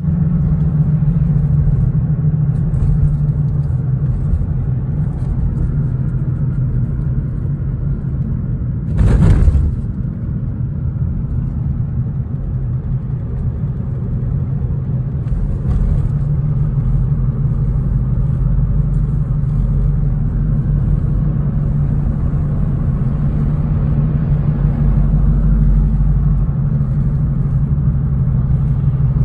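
Steady road and engine rumble inside a moving car's cabin, with a brief louder burst of noise about nine seconds in.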